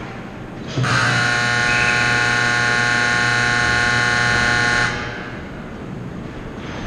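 Ice rink's game horn sounding one long steady blast of about four seconds, starting about a second in, which signals the end of the game.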